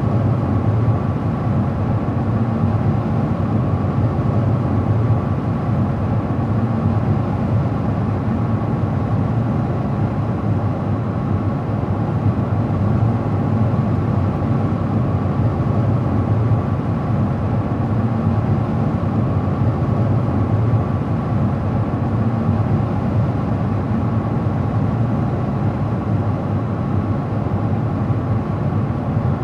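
A car driving at a steady speed: even road and engine noise from the tyres and drivetrain, with no changes in pace.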